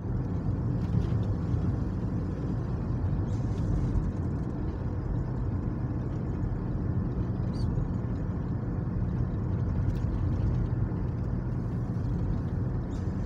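Steady engine and tyre rumble heard from inside the cabin of a car driving along a paved road.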